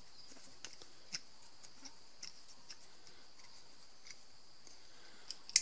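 Faint, scattered metallic clicks of an old steel plier-type gripper being handled and its jaws worked, with one sharper click near the end, over a faint steady hiss.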